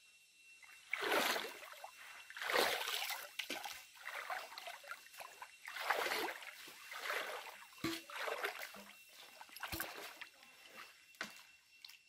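Shallow stream water splashing and sloshing in irregular surges, about every one to two seconds, as someone wades through it.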